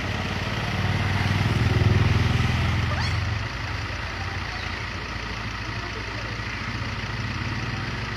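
A motor vehicle's engine running, growing louder over the first few seconds and dropping back about three and a half seconds in.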